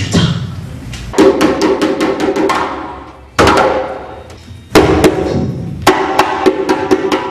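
Hand drum played live in runs of quick strokes, with loud accented hits about a second in, around three and a half seconds, near five seconds and near six seconds.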